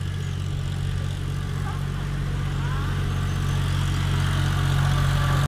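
Low, steady hum of an engine running, made of several steady low tones and slowly getting louder.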